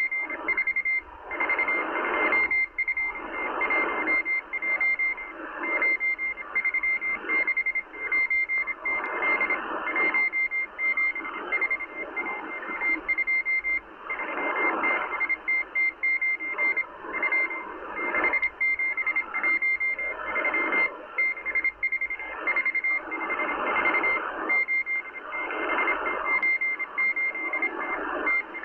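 Russian M12 spy station's Morse code message received on a Kenwood R-1000 shortwave receiver at 14451 kHz: a steady high beeping tone keyed in rapid dots and dashes, over shortwave static that swells and fades every second or two.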